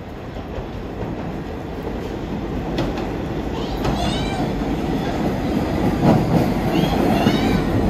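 New York City subway train approaching on the Brighton Line, its rumble growing steadily louder, with short high squeals from about four seconds in and again near the end.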